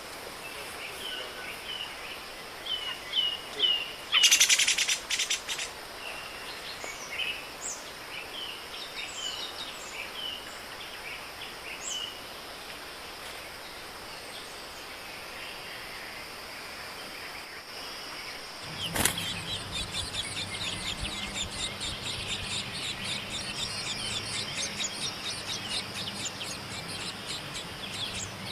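Small birds chirping with short, quick calls, with a brief rustling burst about four seconds in. About nineteen seconds in, after a sharp click, a rapid continuous chattering takes over alongside a low hum.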